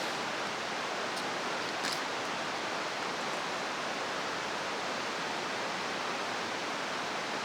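Steady rush of a river flowing, an even wash of water noise, with a couple of faint high ticks in the first two seconds.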